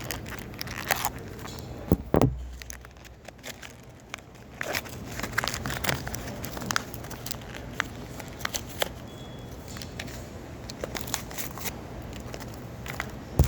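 Earphone packaging being torn and pulled at by hand, with irregular crinkling and crackling throughout and a louder thump about two seconds in and again at the end.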